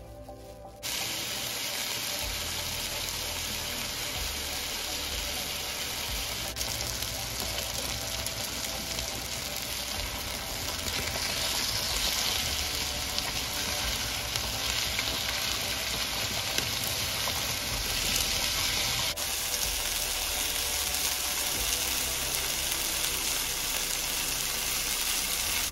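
Marinated chicken thighs sizzling steadily as they fry in a hot frying pan, starting about a second in.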